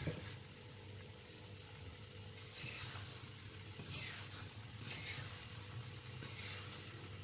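Wooden spatula stirring sugar-coated peanuts in a frying pan on the heat: about four short scraping strokes, roughly a second apart, as the sugar coating cooks onto the nuts.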